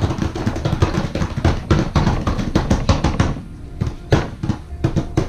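A rapid, irregular string of knocks and taps, several a second, thinning out about three and a half seconds in.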